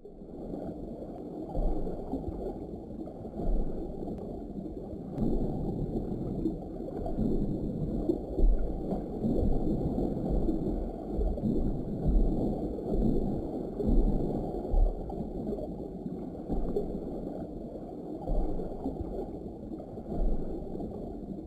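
Muffled, low rushing and gurgling of water, uneven, with irregular deep thumps.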